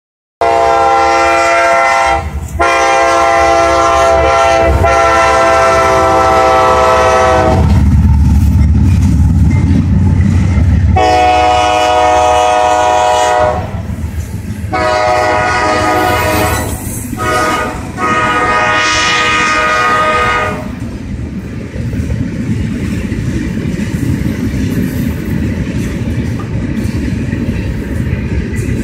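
Diesel freight locomotives sounding a multi-note air horn in several long blasts for a road grade crossing, with the engines' deep rumble loud between blasts about 8 seconds in as they pass. After about 21 seconds the horn stops and refrigerated boxcars roll by with steady wheel rumble and clacking over the rails.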